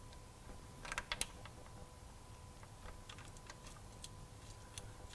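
Light metal clicks from the oil pickup and its bolt being fitted by hand into an engine's oil sump: a few clicks about a second in, then scattered faint ticks.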